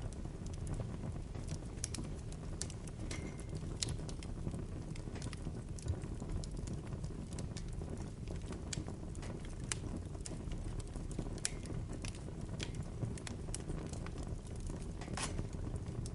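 Bonfire burning: a steady low rumble of flames with irregular sharp crackles and pops of burning wood, the loudest pop near the end, and a brief high whistle about three seconds in.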